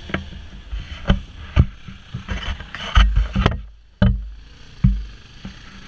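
Off-road vehicle engine running on a rough dirt trail, with wind rumbling on the microphone and several sharp knocks; the sound drops away briefly a little before the 4-second point.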